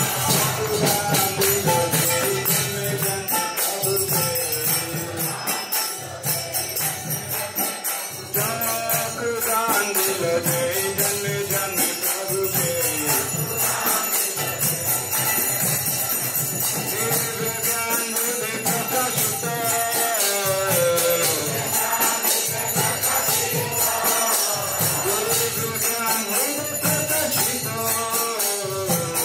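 Devotional kirtan: voices sing a melodic chant over the continuous jingle of small hand cymbals (kartals).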